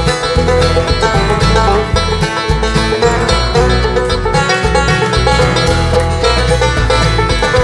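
Live bluegrass band playing an instrumental break between sung verses, a picked banjo to the fore over a pulsing bass.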